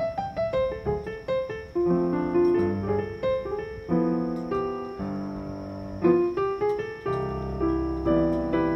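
Background piano music: a run of falling notes at the start, then slow held chords.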